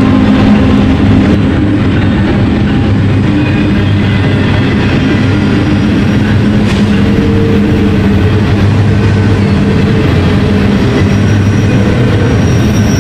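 Diesel locomotive sound from an HO-scale model freight train's sound-equipped locomotives: a steady engine drone with a held whine, as the train runs downgrade in dynamic braking.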